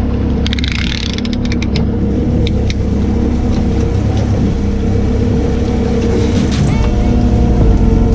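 Boat engine running steadily with a low hum, with a few sharp clicks and taps in the first couple of seconds. Music fades in near the end.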